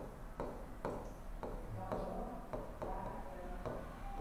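Stylus tapping and clicking on the glass of an interactive display board while writing, about two taps a second, over a low electrical hum.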